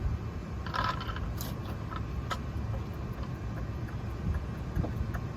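Car jack being set under the vehicle and started: a few scrapes and metal clicks over a steady low rumble.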